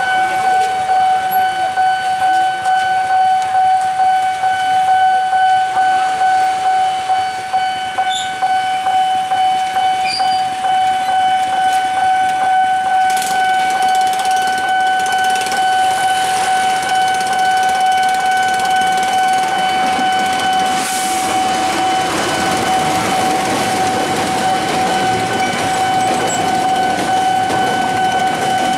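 Railway level-crossing warning signal sounding without a break in a steady tone. From about twenty seconds in, the rumble of a container freight train passing through the crossing rises beneath it.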